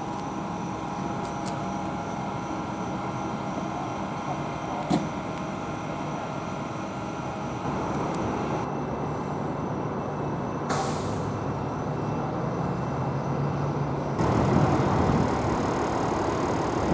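Road traffic: a heavy vehicle's engine running, with a short hiss about eleven seconds in, and the traffic noise growing louder from about fourteen seconds.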